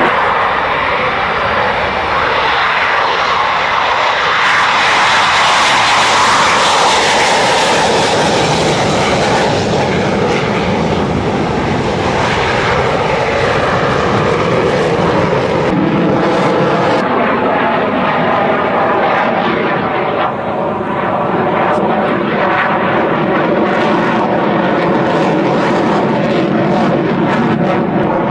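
Jet aircraft engine noise from aircraft in flight: a loud, steady rushing noise that is hissier in its first ten seconds, then duller, shifting again about seventeen seconds in.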